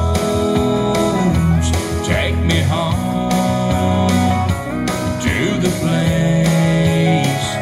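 Music playing through a Marshall Emberton II portable Bluetooth speaker: a song with guitar and a strong bass line, played as a sound test.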